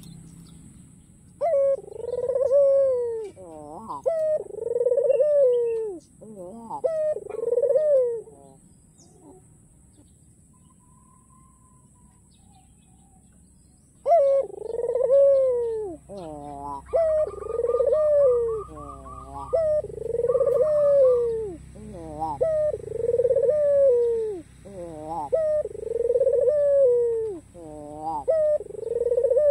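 White ringneck dove (puter) with a black neck ring cooing in its repeated rolling song, each coo falling in pitch. A run of coos, a pause of about five seconds, then a longer steady run of coos.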